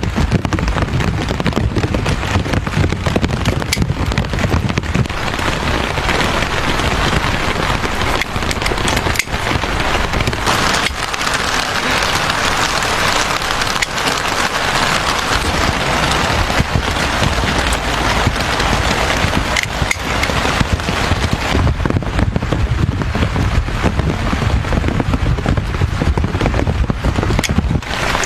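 Drizzle falling, with dense close crackling and rustling throughout.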